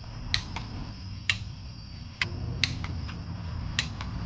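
Sharp, irregular metallic clicks from a hand wrench tightening the clutch pressure plate bolts to torque on the flywheel, about one every half second to a second, over a low steady hum.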